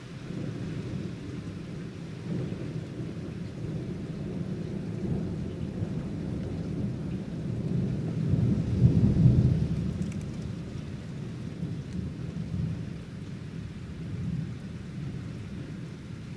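Long rolling peal of thunder that builds to its loudest about nine seconds in and then dies away, over steady rain.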